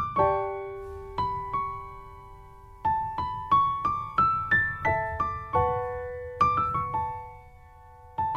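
Background piano music: a slow melody of single struck notes and chords that ring out and fade, pausing briefly twice.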